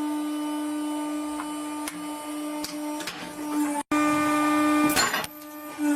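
A hydraulic machine running with a steady mechanical whine. The sound cuts off abruptly nearly four seconds in and resumes, with a brief rattle about five seconds in.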